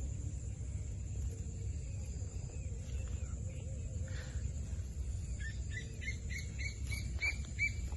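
A parrot giving a quick run of short, repeated chirps, about three a second, beginning about five and a half seconds in, over a steady low rumble and a thin high hiss.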